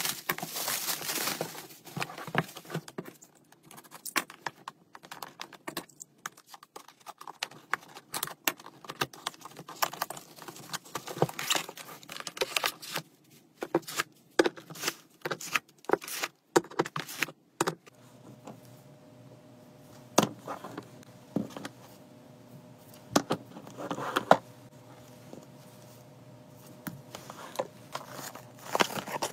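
Hands unpacking a parcel: plastic bubble wrap crinkling and tearing, with many small clicks and taps, for roughly the first two thirds. After that, over a faint steady hum, there are a few separate knocks as metal tins are handled and set down.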